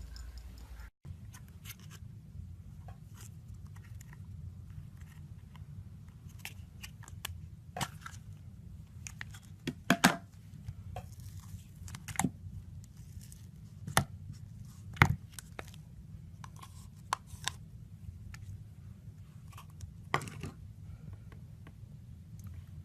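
Slime being squeezed, poked and stretched by hand, making scattered sticky clicks and pops over a low steady hum.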